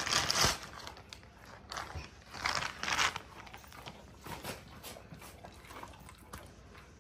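Alaskan malamute chewing a jerky dog treat, crunching in short irregular spells, loudest near the start and again about halfway through.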